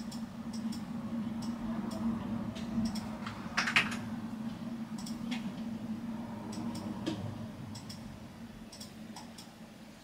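Short, scattered clicks of a computer keyboard and mouse, often in quick pairs, over a steady low hum that fades towards the end. A brief rustle about three and a half seconds in is the loudest sound.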